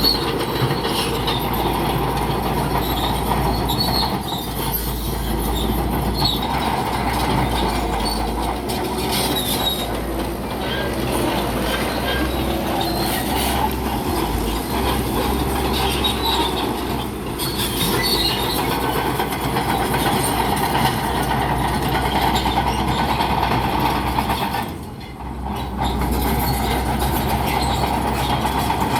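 Crawler bulldozer working: its diesel engine and steel tracks make a steady, loud mechanical din, which drops away briefly about 25 seconds in.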